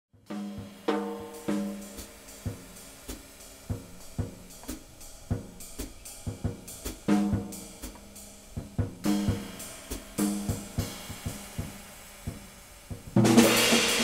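Jazz drum kit played solo: spaced phrases of snare and tom strokes, many ringing at a low pitch, with cymbal accents. A loud cymbal crash with a low drum hit comes near the end.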